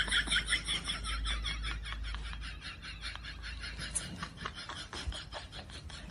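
Insects chirping in a fast, even pulse of several chirps a second.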